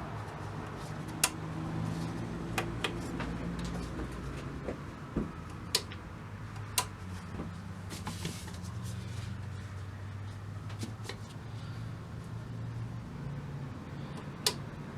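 Sharp clicks and light knocks, about six in all, over a low steady hum, as the powered-up radio is handled and adjusted.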